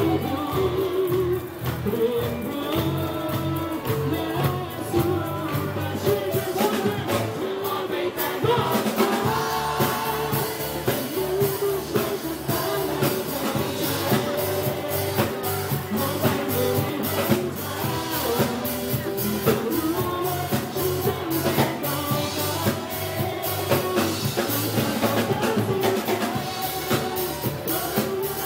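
Live pop-rock song: several male singers on microphones over a band with a drum kit. The drums and cymbals pick up about eight seconds in.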